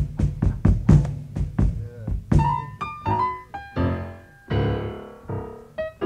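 Jazz drum kit played for about two seconds, then a piano playing scattered single notes and a few chords that ring and fade, in loose studio playing rather than a set tune. The sound comes off an FM broadcast taped on cassette.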